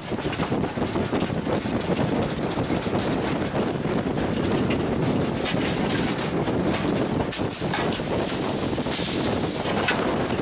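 Steam train running with a steady rumble and wind buffeting the microphone. A brighter hiss rises for about two and a half seconds near the end.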